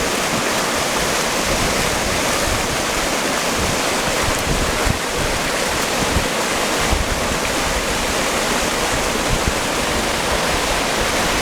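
Waterfall pouring down close by, a loud steady rush of falling water.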